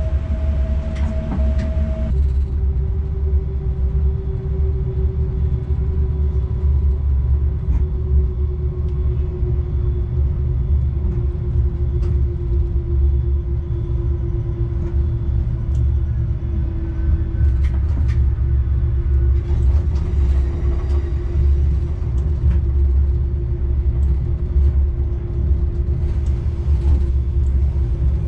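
Rd2 electric locomotive running, heard as a steady low rumble with a single humming tone that drops to a lower pitch about two seconds in and then sinks slowly.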